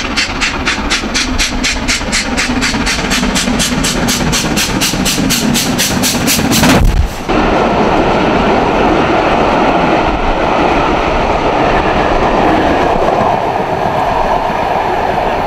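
LMS Stanier Black 5 4-6-0 steam locomotive chuffing toward the listener, its two-cylinder exhaust beats rapid, even and growing louder. About seven seconds in this cuts off suddenly and gives way to a steady rumble of the train's coaches rolling past close by.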